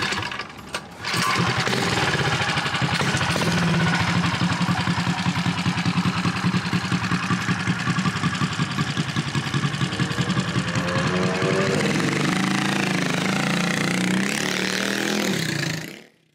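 A hard-starting mini bike engine, choked by hand, is pull-started and catches about a second in. It then runs with a steady, rapid beat, and near the end its pitch rises and falls as it is revved.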